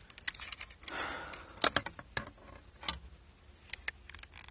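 Irregular sharp clicks and small metallic rattles from the clip and chain of a hand-held Rapala digital fish scale as it is unhooked from a bass's lip, with a soft rustle of gloves and jacket about a second in.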